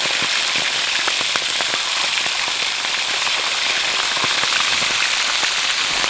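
Quail pieces deep-frying in hot oil in a wok: a steady sizzle with many small crackling pops.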